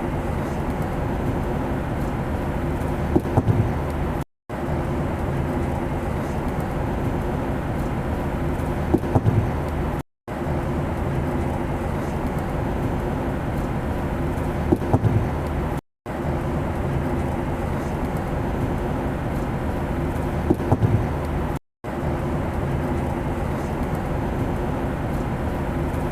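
Steady airplane noise: a low engine drone with hum under an even rush, played as a short loop that repeats about every six seconds, with a brief dropout to silence at each join and a few faint ticks once per loop.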